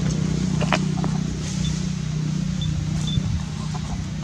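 A motor running steadily with a low hum, with a brief sharp squeak just under a second in and a few faint short high chirps.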